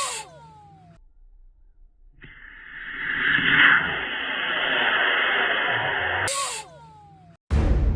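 Model rocket motor burning: a rushing hiss with a steady whistling tone in it, building for about four seconds and then cutting off suddenly, followed by a short sharp burst with falling whistles. Music starts near the end.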